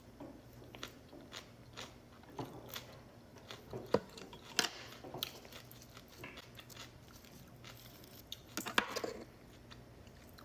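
A person eating close to the microphone: irregular crunchy bites and chewing sounds, with a louder burst of crunching about nine seconds in.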